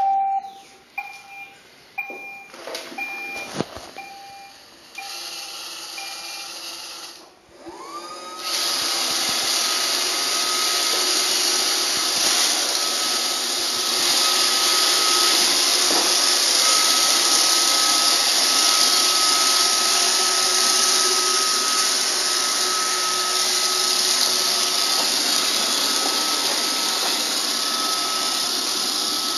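Roomba robot vacuum beeping about once a second. About eight seconds in its vacuum motor spins up with a rising whine and then runs steadily, with a high whine over the suction noise.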